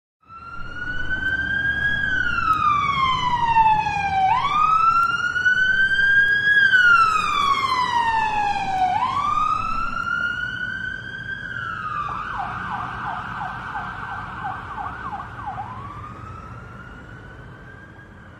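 Police car siren wailing, rising and falling slowly about every four to five seconds. About twelve seconds in it switches to a fast yelp of about three cycles a second, then goes back to a wail and fades away.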